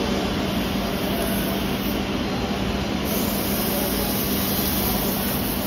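Wood lathe running steadily while sandpaper is held against the spinning mallet handle: a constant motor hum under an even sanding hiss.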